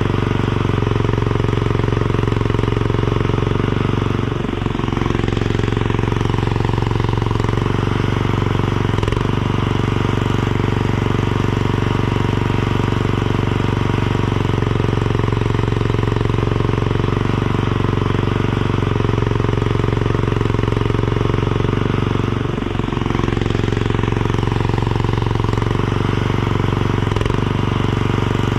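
Mini skid steer's engine running steadily at working speed. Its pitch and level dip briefly twice, a few seconds in and again about three-quarters of the way through.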